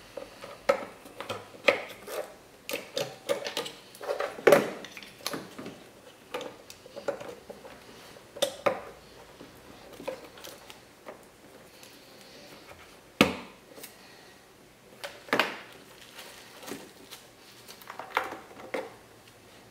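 Irregular plastic clicks, taps and rattles as bulb sockets on a wiring harness are twisted and snapped into the back of a headlight assembly, with a few sharper knocks, the loudest about four and a half and thirteen seconds in.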